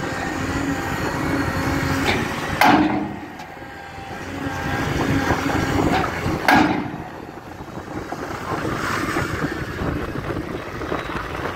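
A 16-ton pile hammer striking a steel pile casing: two sharp metallic blows about four seconds apart, each with a ringing tail, over a steady machine drone.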